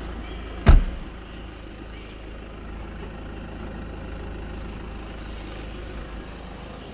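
Mercedes C220 CDI four-cylinder diesel engine idling steadily, a low hum. A single sharp knock stands out about a second in.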